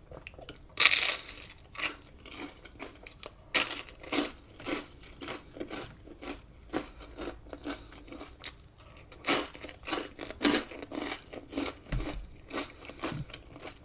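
Close-miked chewing of a mouthful of pork sausage and baked beans: irregular wet smacking and clicking mouth sounds, with louder sharp sounds about a second in and again about three and a half seconds in.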